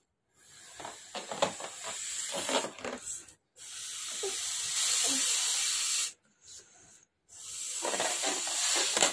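A red party balloon being blown up by mouth: three long blows of breath into it, each lasting a few seconds, with short breaks between them to draw breath.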